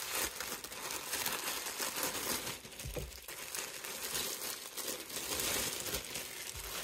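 Thin clear plastic bag crinkling and rustling as it is handled and two raw white bratwursts are pulled out of it, with a low thump about three seconds in.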